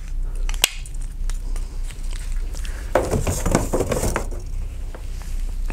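Knife pushed into its cast-metal sheath, seating with one sharp click under a second in. About three seconds in comes a stretch of rustling and light metal clinks as the sheathed knife and its leather straps are handled and set down.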